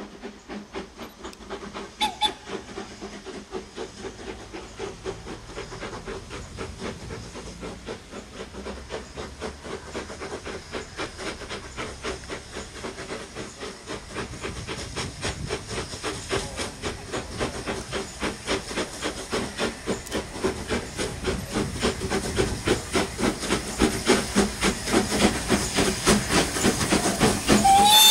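Two steam tank locomotives, a Beattie 2-4-0 well tank and a GWR small prairie 2-6-2T, working a passenger train, their exhaust beats chuffing in an even rhythm and growing steadily louder as they approach. A short whistle sounds about two seconds in, and another whistle starts right at the end.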